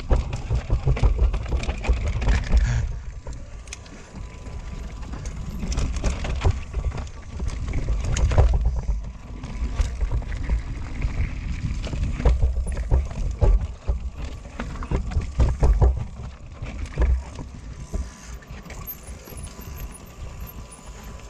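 Mountain bike riding fast down a rocky, rooty trail: tyres rolling over rock and dirt, the bike rattling and knocking with each hit, over a low wind rumble on the camera microphone. It gets quieter for the last few seconds.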